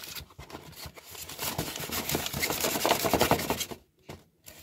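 Cardboard box being opened by hand, its flaps and paper insert scraping and rustling against the cardboard; the rustle builds through the middle and stops abruptly shortly before the end.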